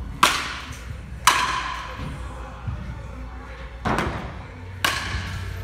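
Softball hitting practice: four sharp impacts from a bat striking pitched softballs and the balls landing, the loudest with a short metallic ring, over a low steady hum.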